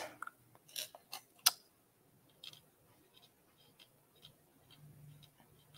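Small beads clicking against each other and the cut-glass dish as they are picked out by hand: a few sharp clicks in the first second and a half, then fainter scattered ticks.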